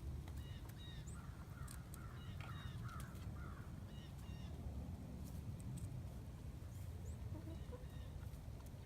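Chickens squawking in short repeated calls that come in little groups, with a few sharp clicks among them.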